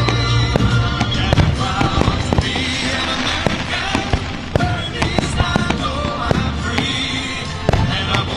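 Aerial fireworks shells bursting one after another in quick succession, with crackling, over a song playing with instruments.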